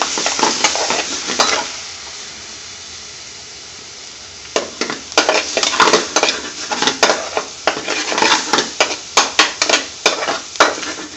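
Saag paneer with cream sizzling in a metal frying pan as a metal spoon stirs it. The spoon clatters and scrapes against the pan for the first second and a half. Then there is only a quieter steady sizzle, and from about four and a half seconds in the stirring starts again in quick, repeated scraping strokes.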